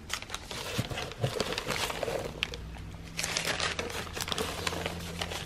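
Foam packing peanuts and brown paper wrappers rustling and crinkling as a hand digs through a shipping box, in a run of small irregular crackles.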